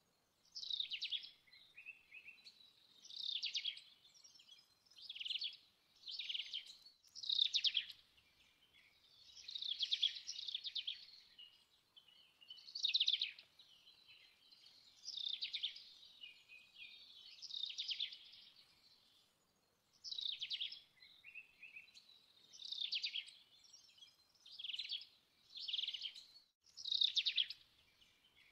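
Paintbrush strokes scrubbing white paint onto a rough terracotta pot: short, hissing strokes, one every second or two, with brief pauses between them.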